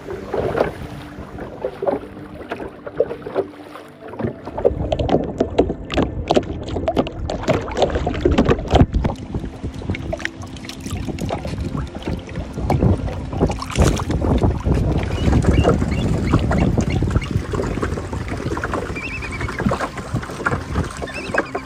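Water lapping and slapping against the hull of a small drift boat in short, irregular splashes, with some wind on the microphone.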